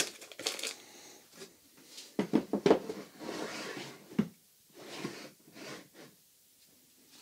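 A plywood drawer full of tea bags being handled and slid open by its knob: a few sharp wooden knocks, the loudest about two to three seconds in, then wood rubbing and sliding as the drawer is pulled out.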